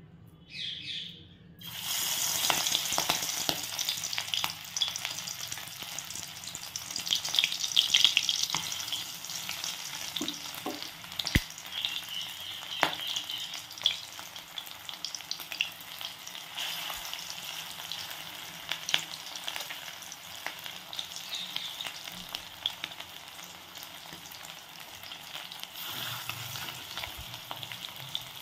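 Katla fish-fat fritters frying in hot mustard oil in a kadai, sizzling and crackling. The sizzle starts suddenly about two seconds in as the first fritters go into the oil. It is loudest over the next several seconds, then settles to a steadier sizzle with scattered sharp pops.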